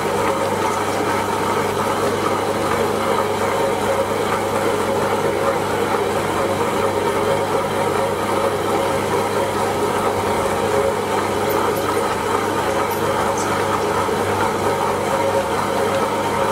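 Tabletop wet grinder running steadily, its drum turning under the rollers as it grinds soaked urad dal into idli batter, with a constant motor hum.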